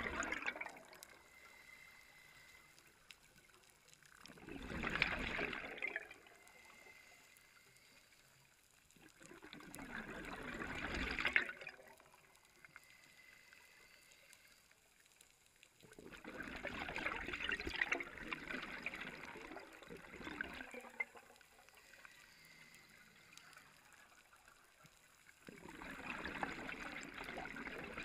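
Scuba diver's regulator breathing, heard underwater: a bubbling exhalation every five to six seconds, four times, with quieter inhalations between.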